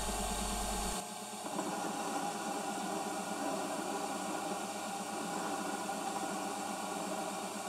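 Small EMCO Unimat SL hobby lathe running steadily under power, its cutting tool turning a steel workpiece.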